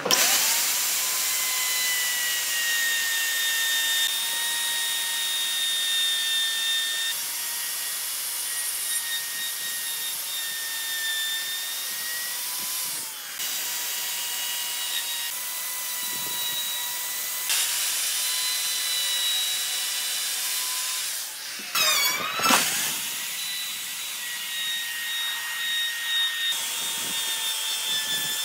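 Electric plunge router running at high speed, its straight bit cutting a groove into a wooden board: a steady high whine over a hiss of cutting. About 22 seconds in the pitch drops sharply and climbs back.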